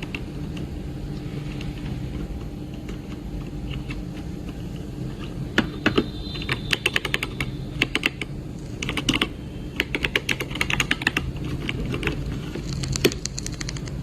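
Typing on a mechanical keyboard fitted with plastic keycaps, keys clacking in quick irregular runs that start about five seconds in. A low steady hum sits underneath.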